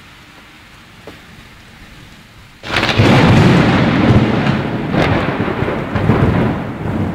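Steady rain, then about two and a half seconds in a sudden loud thunderclap that rolls on as a long rumble, with a second crack about two seconds later.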